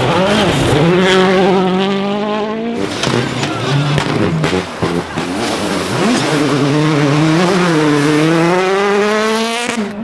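Rally car on a gravel stage accelerating hard, its engine rising in pitch, dropping briefly about three seconds in amid a burst of cracks and pops, then climbing again before the sound cuts off abruptly.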